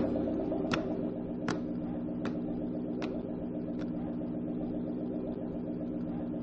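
Car engine idling steadily, with five sharp clicks evenly spaced about three-quarters of a second apart during the first four seconds.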